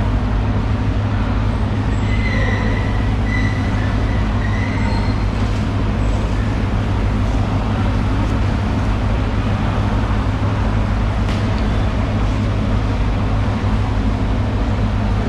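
A steady, loud mechanical drone with a constant low hum, unchanging throughout, with a few faint high tones about two to five seconds in.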